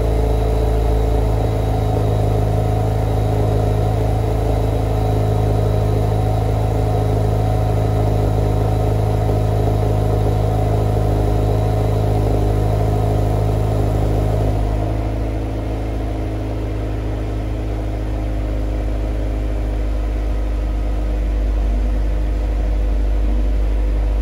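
2014 Subaru Forester XT's turbocharged 2.0-litre flat-four running steadily at idle through a new aftermarket exhaust: full system from the downpipe, centre resonator and valved muffler. About fifteen seconds in, the note changes abruptly, settling lower and a little quieter.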